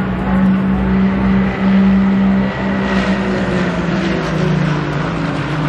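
GT race car's engine running hard as it passes on the track. Its note holds steady, then drops lower from about four seconds in as it goes by.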